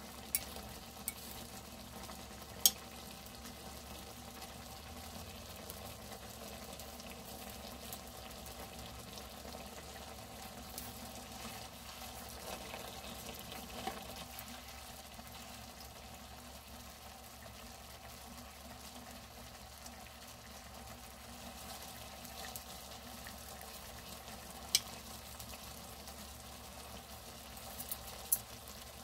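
Pieces of Pacific saury simmering in a small pan of bubbling liquid: a steady low sizzle with a few sharp pops. About halfway through, metal tongs move the fish briefly in the pan.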